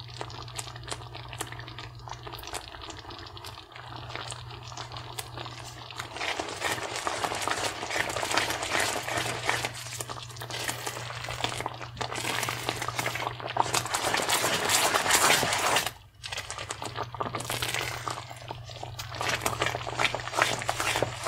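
Thick, creamy alfredo sauce simmering and bubbling in a pan while a spatula stirs it: a crackling, popping sound that grows louder about six seconds in and breaks off briefly near the end, over a low steady hum.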